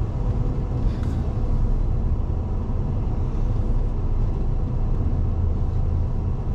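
Steady low rumble of a moving car, road and engine noise heard inside the cabin.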